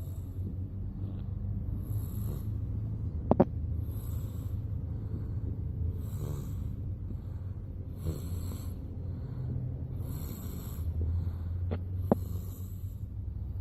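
A 10-month-old baby snoring in its sleep, a snore about every two seconds, over the low steady rumble of the moving car. A sharp click about three seconds in and another near the end.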